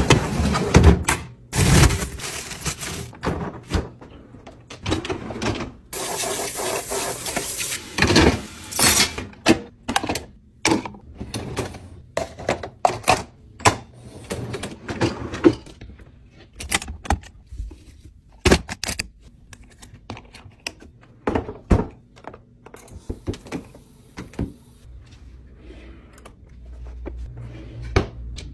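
Handling noises from kitchen chores: plastic trash bags rustling and bins knocking, then dishes and glasses clinking and knocking as a dishwasher is unloaded. Many short thuds and knocks throughout.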